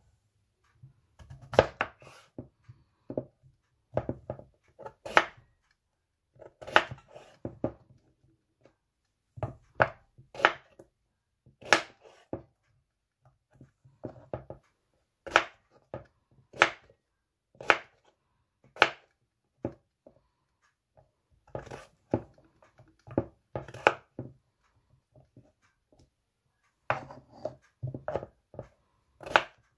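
Kitchen knife cutting raw potatoes on a wooden cutting board, each cut ending in a sharp knock of the blade on the wood. The knocks come irregularly, about one a second, with short pauses between runs.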